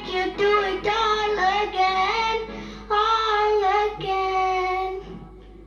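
A girl singing solo into a microphone, long held notes that slide between pitches, ending her song about five seconds in. The voice comes through a video call's audio.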